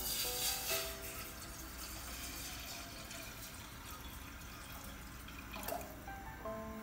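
Water pouring from a plastic pitcher into a stainless steel pot, splashing loudest in the first second and then running on more quietly.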